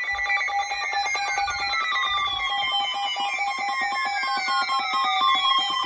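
Several weather alert radios sounding their alert tones at once as a tornado warning comes in. Steady tones mix with rapid pulsing beeps and falling sweeps that repeat every few seconds.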